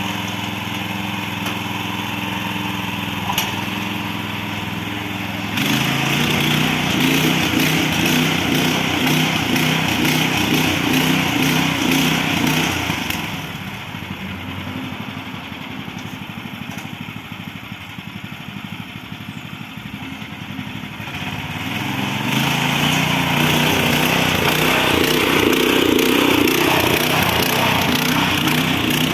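Stihl MH 610 tiller's 212 cc four-stroke engine running steadily. It gets suddenly louder about five seconds in, turns quieter through the middle, and rises again near the end.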